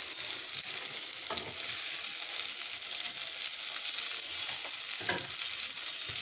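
Cauliflower florets and potato pieces sizzling as they fry in oil in a nonstick karahi, a steady high hiss. Two brief knocks come about a second in and near the end.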